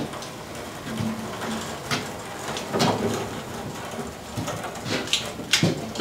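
Manual pallet jack with a heavy machine on its forks being rolled over a rough concrete slab: a steady rolling rumble with scattered clunks and knocks.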